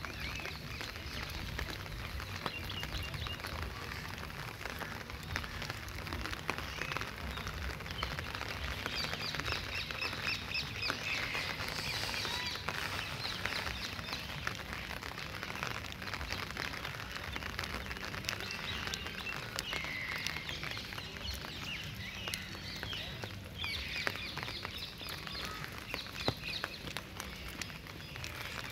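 Birds calling in rapid runs of repeated high notes, about ten seconds in and again near the end, over a light patter of rain drips.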